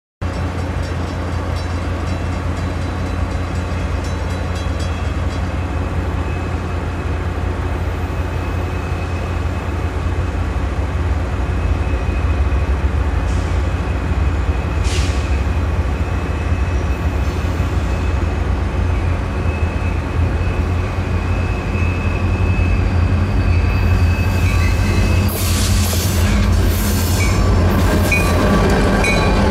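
CSX freight train rolling past with a steady low rumble, and high wheel squeals about halfway through and again near the end.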